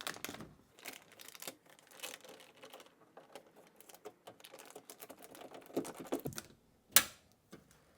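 Hands pressing sticky door sealant and its sheet back onto a car door: irregular light clicks and crinkles, with one sharp click about seven seconds in.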